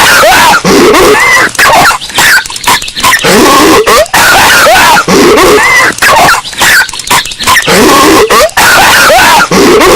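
Cartoon character Patrick Star coughing and hacking, amplified until heavily distorted. The same burst of coughs repeats about every three and a half seconds.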